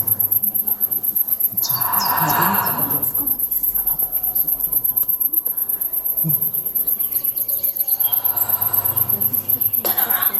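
Insects chirring, like crickets: a continuous high, fast-pulsing trill, with a few softer mid-pitched sounds about two seconds in and again near the end.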